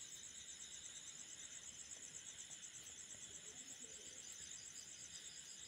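Near silence: faint background hiss with a steady, rapidly pulsing high-pitched trill.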